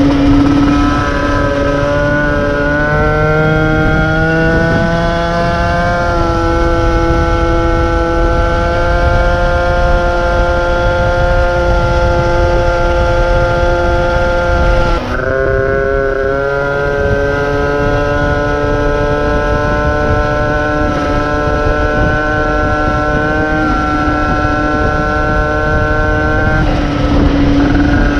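50cc two-stroke moped engine under way. It revs up over the first few seconds and holds a steady high note, drops sharply for a moment about halfway through before picking up again, and dips once more near the end, with wind rumble on the microphone underneath.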